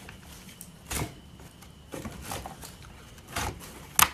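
Wooden slats and lid of a homemade antenna-making jig knocking and clicking as they are pressed and set into place: a few short knocks about a second apart, the sharpest near the end.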